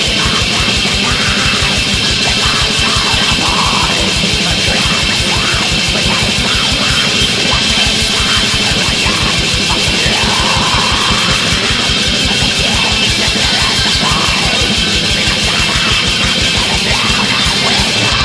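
Black metal band playing at full tilt on a raw demo recording: distorted guitars over a rapid, unbroken drum beat, loud and steady throughout.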